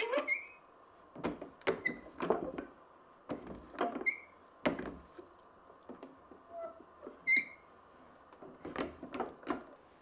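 Irregular knocks and clicks of a metal rod worked against a stainless steel ball bearing as it is seated in the hole in a Swiss Army knife's red scale on a wooden workbench, with a few short high squeaks between the knocks.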